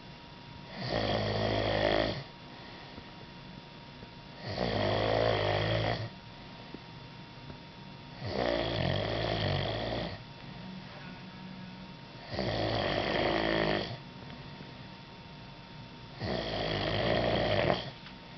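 A man snoring heavily: five long, rasping snores, one about every four seconds, with quiet breathing gaps between them.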